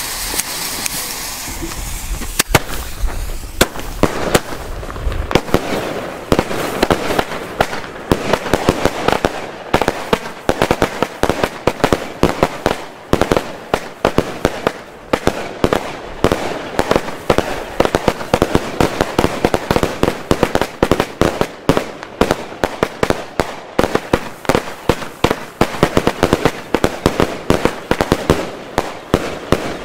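A lit fuse hisses with sparks. Then, from about two seconds in, a fireworks cake and a salute battery fire together as a rapid, unbroken string of sharp bangs and crackling, several shots a second.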